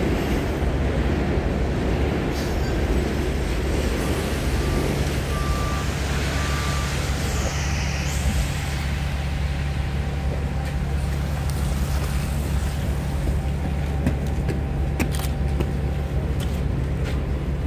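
2011 Orion VII 3G diesel transit bus idling at a stop, a steady low engine hum. Three short beeps sound about four to seven seconds in.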